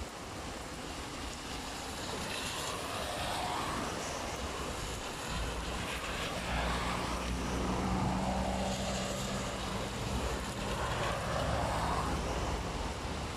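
Steady rain with several cars driving past on a waterlogged road, each pass a swelling and fading hiss of tyres through water. About five seconds in, a low engine hum from a vehicle running close by sets in and continues.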